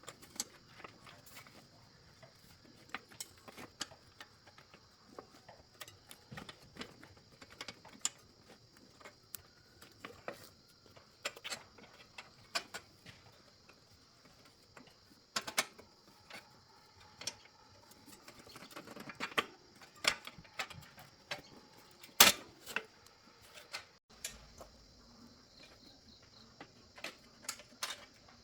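Irregular clicks and taps of hand tools and small metal bicycle parts being handled during repair, with one sharper knock about 22 seconds in. A faint steady high-pitched drone sits underneath.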